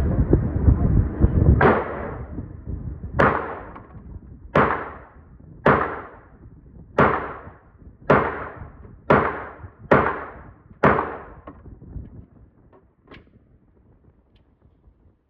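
A string of about nine single gunshots at the range, fired roughly one a second, each with a short ringing tail, thinning to a couple of faint reports near the end. A loud, dense noise fills the first two seconds.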